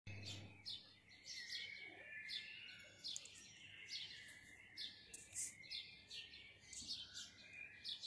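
Pre-dawn chorus of small birds, faint: many quick, high chirps that drop in pitch, repeating over a continuous high twittering.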